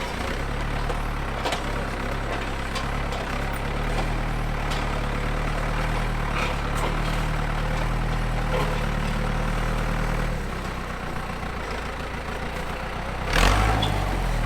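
An engine idling steadily, with a brief louder surge near the end.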